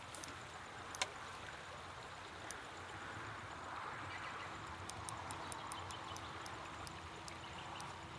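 Water splashing and running as a hooked barbel is played at the surface and drawn into a landing net in a strong river current. A sharp click comes about a second in, and light ticks around five seconds in.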